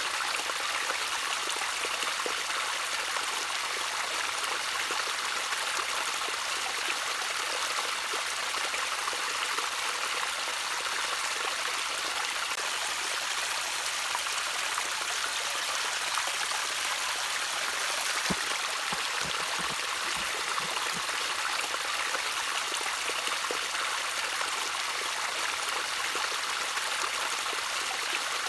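Small stream trickling and babbling steadily over stones, a continuous even splashing with light drip-like ticks.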